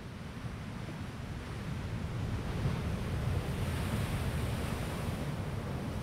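Water surging in a rocky tide pool, heard from under the water: a low rumble with hiss above it, swelling louder for a few seconds in the middle as a wave washes in.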